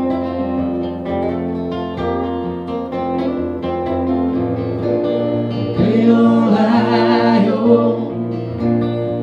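Live acoustic band music: guitars playing with singing. A louder, wavering vocal note swells in about six seconds in.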